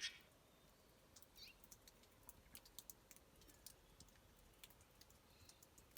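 Near silence, broken by scattered faint sharp clicks and a single faint bird chirp that glides down about a second and a half in.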